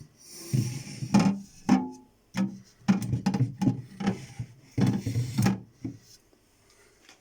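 Guitar played in short strummed strokes with brief pauses between them.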